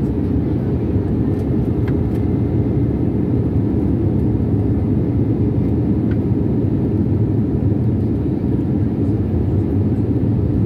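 Steady low rumble inside an airliner cabin: the underwing jet engine and the airflow, heard from a window seat over the wing during the low approach to landing.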